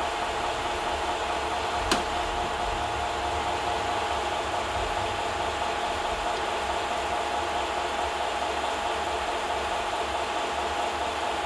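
Steady mechanical whir and hiss with a low rumble, unchanging throughout, broken by one sharp click about two seconds in.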